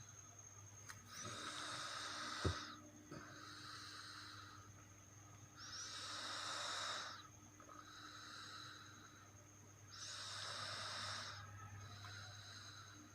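Someone snoring in their sleep: slow, noisy breaths with three louder snores about four seconds apart and softer breaths between them. A sharp click comes about two and a half seconds in, over a steady low hum.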